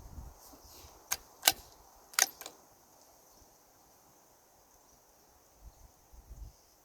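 A few sharp metallic clicks and clacks in quick succession, typical of the bolt of a Keystone Cricket single-shot .22 rifle being opened, loaded and closed between shots. Faint low bumps of handling follow near the end.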